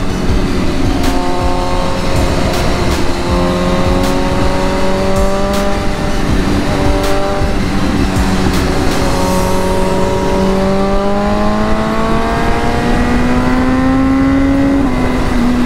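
Motorcycle engine running under way with a steady note that slowly climbs in pitch, with a couple of small steps, over constant wind rush.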